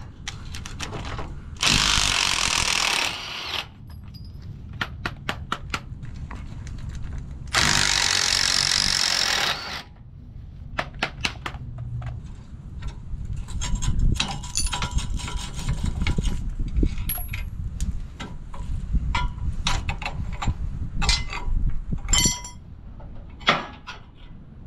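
Impact wrench running in two bursts of about two seconds each, loosening the leaf-spring bolts on a boat trailer. Between and after the bursts come quick clicks and irregular metal clinks and knocks from hand tools and loose hardware.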